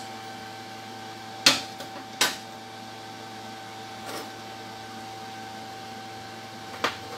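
Steady machine hum, with sharp knocks of metal on metal: two close together about a second and a half in and one near the end, as steel weld test coupons are handled on a steel workbench.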